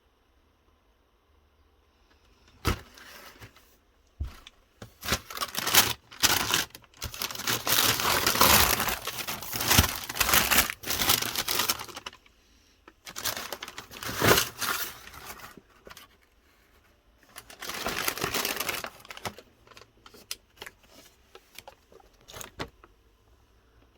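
Packing paper crinkling and rustling in several bursts of handling, with a few sharp clicks and knocks in between.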